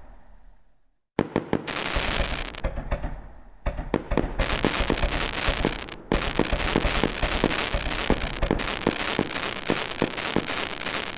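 Fireworks exploding in quick succession: low booms with dense crackling and many sharp pops. There is a brief hush about a second in, then steady crackling.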